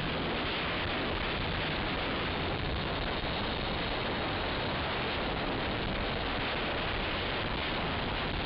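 Steady rushing wind noise on the microphone of a camera travelling on a moving motorcycle.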